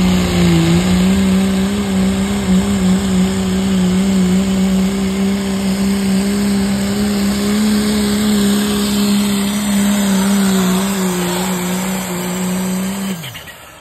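Turbocharged diesel pickup engine at full throttle pulling a weight-transfer sled, holding a loud, steady high-rpm drone with a hiss over it. Near the end the pitch drops and the sound fades as the engine winds down at the end of the pull.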